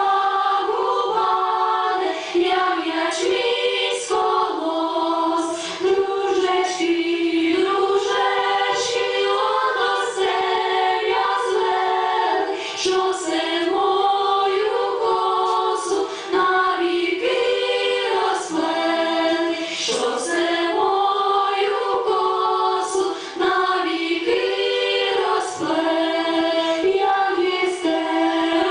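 Women's choir singing a Ukrainian folk wedding song in several voices, unaccompanied, without a break.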